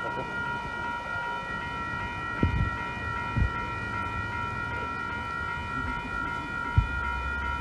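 Amtrak locomotive's multi-note air horn sounding one long, steady chord as the train approaches. A low rumble comes in a couple of seconds in, and a few dull thumps are heard.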